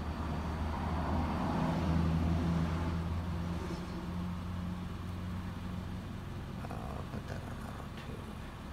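Steady low hum of an idling engine. It swells for a couple of seconds near the start, then eases back.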